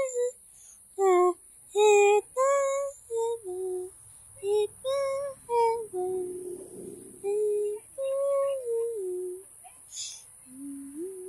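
A high voice singing a simple tune as a string of separate short notes with small breaks between them, followed by a brief hiss near the end.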